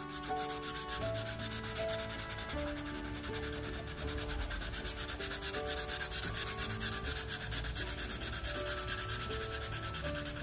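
Red marker pen scribbling back and forth on paper in quick, even strokes, colouring in a triangle, with soft background music underneath.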